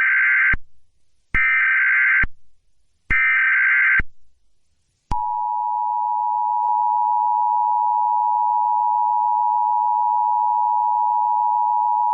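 Emergency Alert System tones: the end of one and then two more short, buzzy SAME header data bursts about a second long and evenly spaced, then, about five seconds in, the steady two-tone EAS attention signal that announces an emergency alert.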